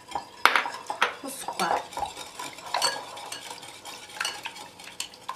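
A kitchen utensil scraping and clinking against a mixing bowl in a quick, irregular run of short scrapes and taps, as cornstarch is worked into beaten eggs.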